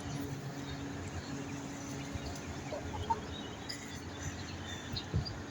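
Faint clucking of chickens over a steady low hum, with a short knock near the end.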